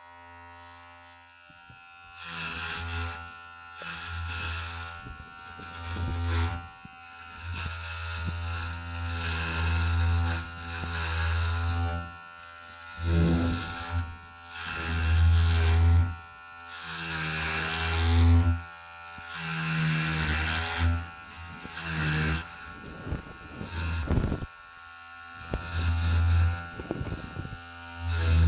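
Electric hair clippers buzzing close to the microphone, swelling and fading every second or two as they are moved back and forth.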